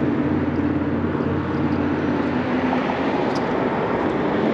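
Steady motor-vehicle drone over a hiss of street traffic, with a low engine hum that drops slightly in pitch about halfway through.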